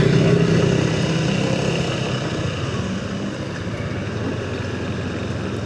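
Vehicle engines and road noise while riding a motorcycle, steady, as an oncoming car passes close by; the sound is loudest at the start and eases off as the car goes by.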